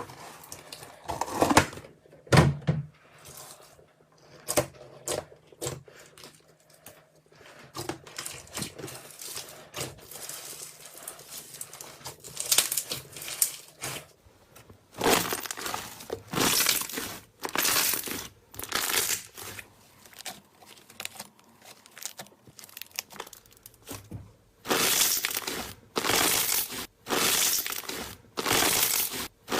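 Slime being pressed and squeezed by hand, giving irregular short bursts of noise that settle into about one a second near the end.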